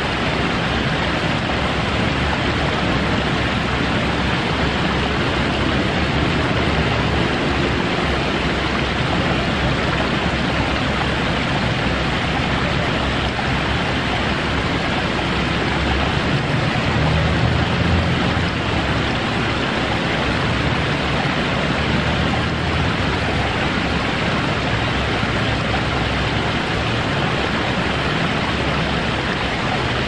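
Fountain water running steadily over pebbles and stones in a shallow channel, with a waterfall wall spilling behind it. A low hum swells briefly a little past halfway.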